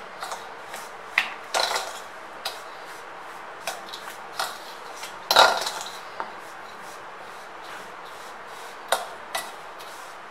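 A spoon scrapes and clinks irregularly against a stainless steel bowl as it stirs a dry, crumbly flour mix. The loudest scrape comes a little past five seconds in, the sound quietens after that, and two more clicks come near nine seconds.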